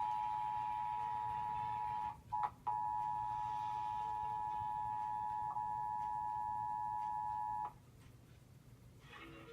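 Emergency Alert System attention signal: the steady two-tone alert (853 and 960 Hz sounded together). It breaks off briefly about two seconds in, then runs for about five more seconds and cuts off abruptly.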